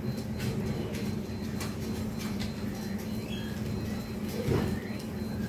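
Steady low background hum, with faint scattered rustling and clicking of hands working in a plastic bag and potting soil.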